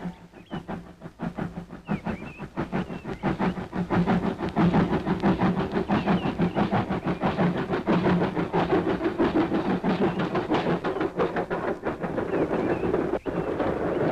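Steam locomotive hauling a passenger train round a sharp curve at reduced speed, its rapid exhaust beats over a rumble growing louder over the first few seconds as it draws near. Near the end the coaches roll past with a steadier rumble and clatter of wheels on the rails.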